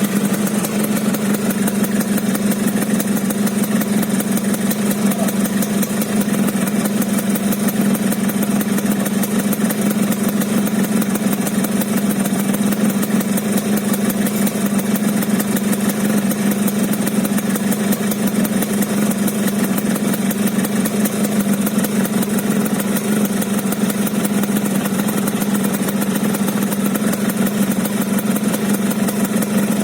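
Yamaha RX-King two-stroke single-cylinder motorcycle engine idling steadily at an even speed, with the rough, snoring idle known as 'ngorok'.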